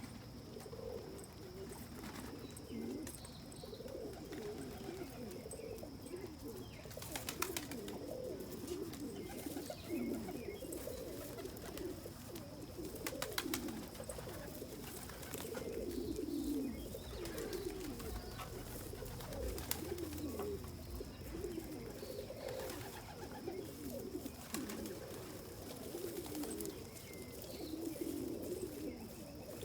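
Flock of domestic pigeons cooing continually, many birds overlapping, with a few sharp clicks.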